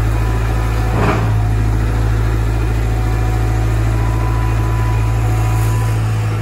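Cat 320 GC excavator's four-cylinder C4.4 diesel engine running steadily under load as the machine swings, with a short sharp noise about a second in.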